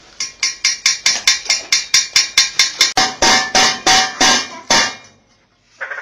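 Rose-ringed (ring-necked) parakeet rapping its beak against an enamel cooking pot: a fast, even run of about five knocks a second with a slight metallic ring. The knocking stops about a second before the end.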